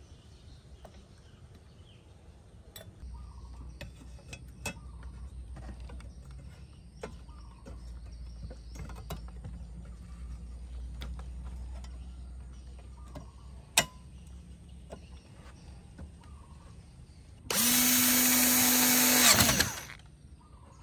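Cordless electric screwdriver running for about two seconds near the end, with a steady motor whine, driving a screw into the amplifier's metal end panel, then stopping suddenly. Before it come scattered small clicks and one sharp knock as the metal case is handled.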